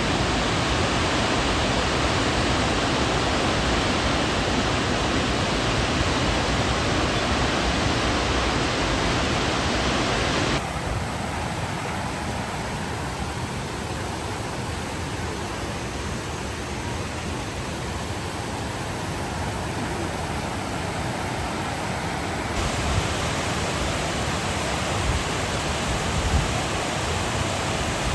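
Waterfall: a steady rush of falling water. Its level and tone change abruptly about ten seconds in and again about twenty-two seconds in.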